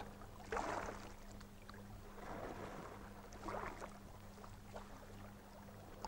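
Faint wash of small sea waves lapping at the shoreline, with three soft swells, over a steady low hum.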